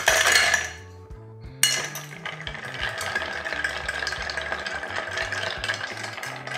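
Ice cubes tipped from a metal scoop into a cut-crystal mixing glass, followed by a short lull. From about a second and a half in, a bar spoon stirs the ice round the glass with a continuous clinking rattle. Background music plays throughout.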